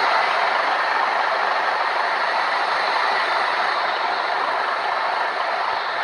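Steady, even rushing noise of a bus on the move: road and wind noise, with no horn sounding.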